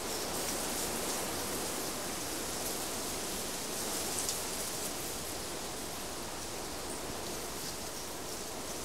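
A steady, even rushing hiss with no tone or rhythm, flecked with a few faint crackles.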